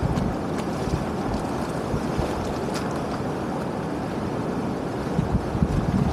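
Wind buffeting the microphone with a steady low rumble, over water sloshing as a person wades through shallow muddy water.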